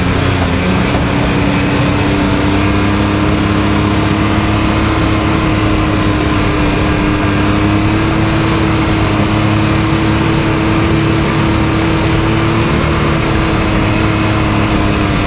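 Can-Am Maverick X3 side-by-side's turbocharged three-cylinder engine running at a steady speed along a trail, its pitch rising very slightly, over the rumble of the machine moving over rough ground.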